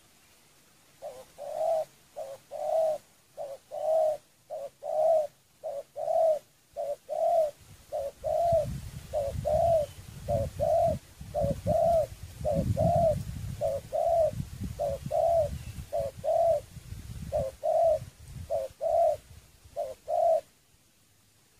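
Spotted dove cooing: a long run of short coos, often in pairs, about two a second, starting about a second in and stopping shortly before the end. A low rumble sits underneath through the middle part.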